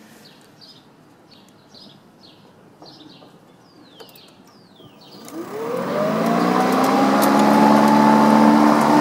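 A bird chirps repeatedly, each call a short falling note. About five seconds in, the Toro Flex Force 60V battery lawn mower's electric motor starts up: a whine rises in pitch over about a second and a half, then holds as a steady hum with blade whoosh.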